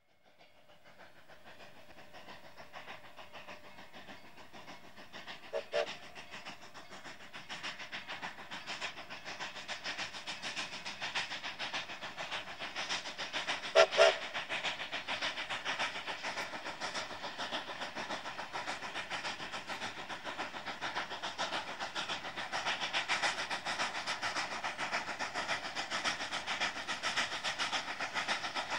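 Two narrow-gauge Mikado steam locomotives, a Rio Grande K-37 leading a K-36, working hard upgrade. Their exhausts beat rapidly and grow louder as the double-headed train draws nearer. A steam whistle gives two short toots about six seconds in and two louder ones about fourteen seconds in.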